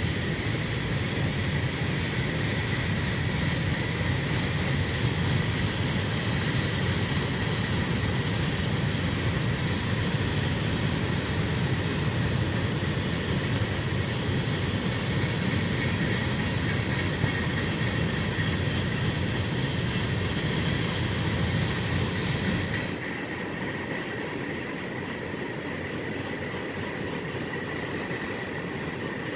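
Freight train of tank cars and covered hoppers rolling past, a steady noise of wheels on rail. About three-quarters of the way through the sound drops noticeably and loses much of its hiss and low rumble while the cars keep passing.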